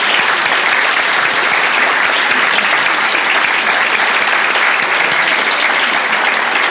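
A seated audience applauding, steady sustained clapping from a hall full of people.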